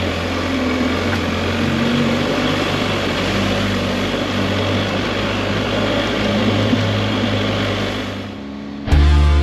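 BMW R1250 GSA's boxer-twin engine running steadily under way, with wind and road noise, heard from on the motorcycle. It fades out about eight seconds in, and guitar music starts just before the end.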